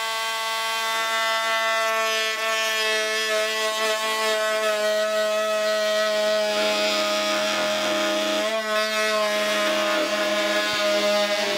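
Oscillating multi-tool running at a steady, even pitch as its blade plunge-cuts into a 1x12 pine board, with the blade rasping in the wood.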